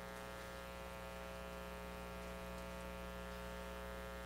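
Steady electrical mains hum with a buzzy edge, one unchanging drone of many even tones, in the room's audio feed.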